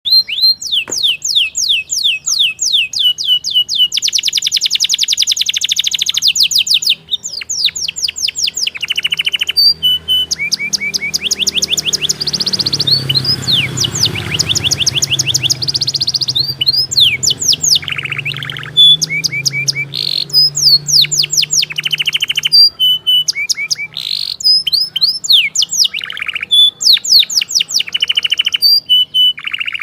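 Canary singing a long, loud song of fast trills and rolls: rapid runs of repeated notes and quick sweeping whistles, broken by short pauses.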